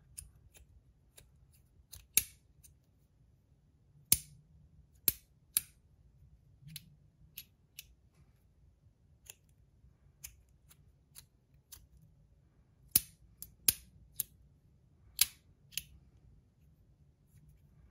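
Brass stackable magnetic haptic slider fidget clicking as its pieces are slid and snap into place: sharp, irregular clicks, with the louder snaps about two, four and five seconds in and again around thirteen to fifteen seconds in.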